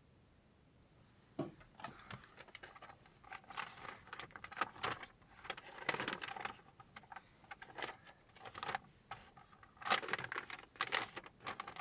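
Packaging and small parts being handled: irregular rustling with quick clicks and taps, starting about a second and a half in and busiest twice, mid-way and near the end.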